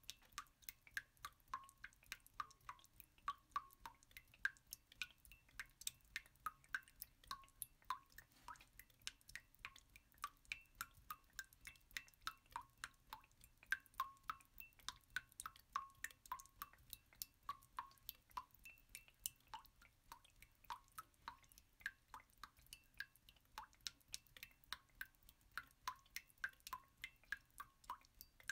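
Faint water drops dripping without pause, each a short high plink, about three a second at uneven intervals.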